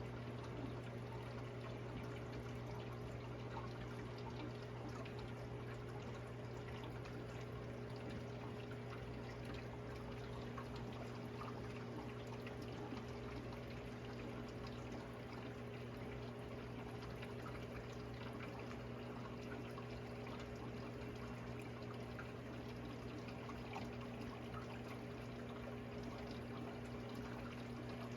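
Miele dishwasher running its wash cycle: a steady motor hum with water pouring and splashing inside the tub.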